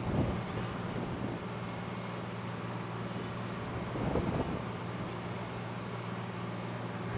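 Steady low mechanical hum and rushing noise of an aircraft carrier's flight deck, with two brief louder swells: one just after the start and one about four seconds in.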